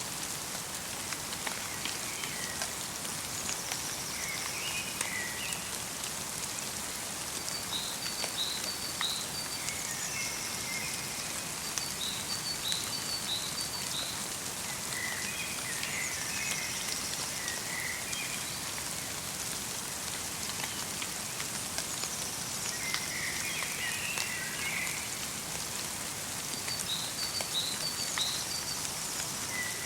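Light rain pattering steadily in a forest, with small songbirds calling over it. One bird repeats a short falling phrase about every six seconds, and another gives quick runs of four short notes a few times.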